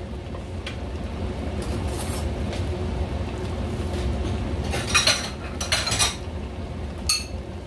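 A pot of chicken adobo simmering on the stove under a steady low hum, with a few short metallic clinks of dishes and cutlery about five, six and seven seconds in.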